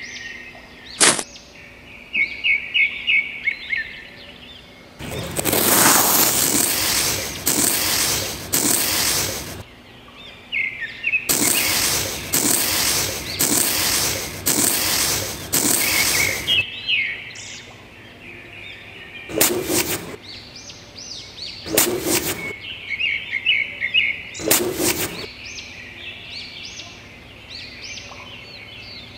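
Small birds chirping in quick repeated calls throughout, broken by two long stretches of loud rushing noise lasting several seconds each, then three short bursts of the same kind of noise a few seconds apart.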